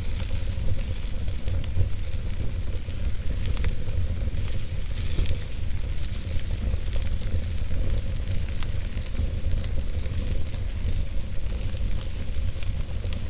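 Wood fire burning in a fireplace: a steady hissing crackle with scattered small pops, over a low rumble.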